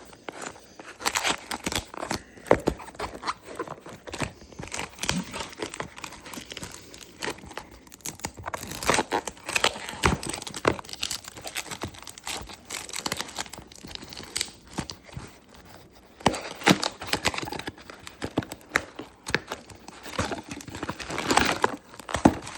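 A small package is cut open with scissors and unwrapped: a string of sharp snips and clicks, with crinkling and tearing of the wrapping.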